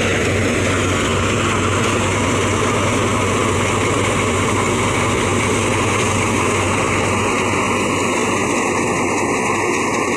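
A wheat thresher running under load, belt-driven by a Belarus 510 tractor. The tractor engine gives a steady low hum under a dense, even rush of the threshing drum and of grain and chaff blowing out.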